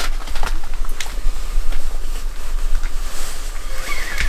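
Steady low rumble of wind noise on the microphone, with a few faint clicks.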